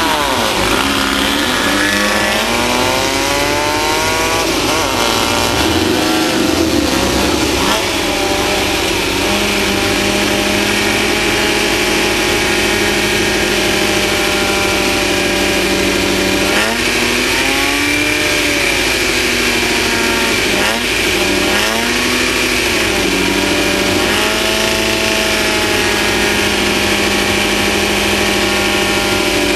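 Off-road race vehicle's engine running hard, its pitch climbing and dropping several times with throttle and gear changes and holding steady in between, over a continuous rushing noise of wind and terrain.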